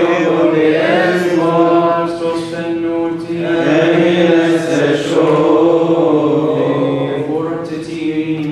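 Men's voices chanting a Coptic liturgical hymn together, on long, drawn-out notes.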